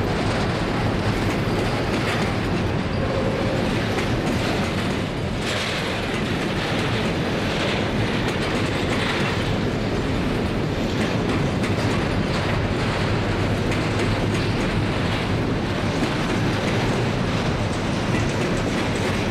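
Freight train of hopper and box wagons rolling past: steel wheels running on the rails in a steady rumble, with repeated clacks as the wheels cross rail joints.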